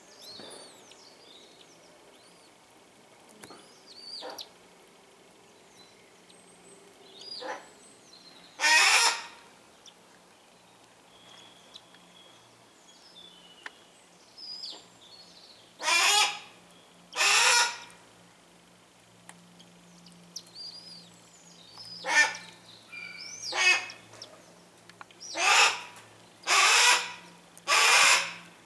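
Harris's hawks calling in the nest: about seven loud, harsh, rasping calls, each under a second long and several in quick succession near the end, with faint thin high peeping calls between them.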